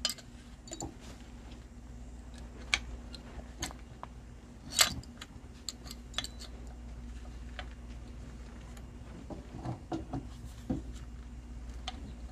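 Scattered metallic clicks and clinks of a new front brake caliper and its pads being handled and fitted over the disc rotor, with one sharper knock about five seconds in, over a steady low hum.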